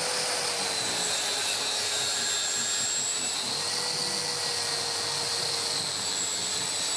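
Bosch plunge-cut circular saw running on a guide rail and cutting through multiplex plywood, a steady high whine from the motor and blade, with a dust extractor drawing through its hose.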